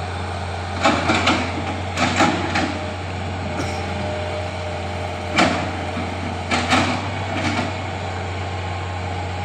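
Excavator engine running with a steady low hum, with several sharp clanks and knocks in small clusters over it.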